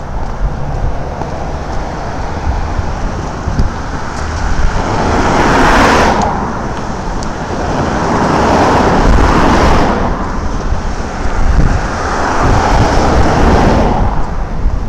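Road traffic: three cars pass one after another on the road alongside, each a swell of tyre and engine noise that rises and fades, over a steady low rumble.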